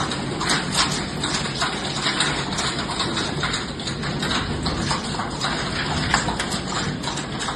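Hail pelting hard surfaces: a dense, unbroken clatter of many small impacts.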